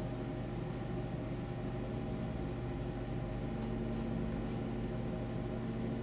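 Steady low hum with a faint hiss, unchanging throughout.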